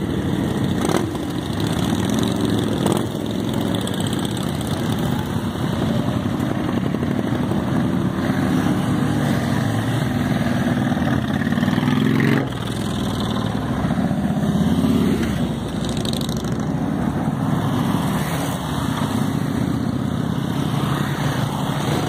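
Many motorcycles riding past one after another at low speed, their engines a steady mixed rumble at low revs. The sound dips briefly about halfway through.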